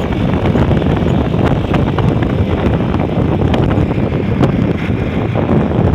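Steady low rumble of a bus engine running, with wind buffeting the microphone.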